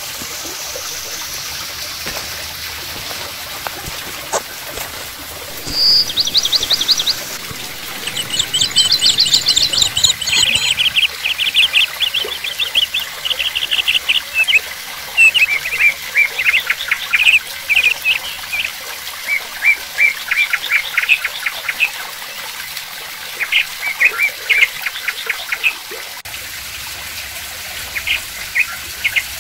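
Water from a cement-sculpted artificial waterfall trickling and splashing steadily into its pool. From about six seconds in, birds chirp over it in quick, high trills, repeated many times and louder than the water.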